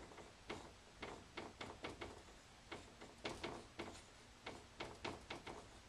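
Dry-erase marker writing on a whiteboard: a faint, quick, irregular series of short scratches and taps as the letters are drawn.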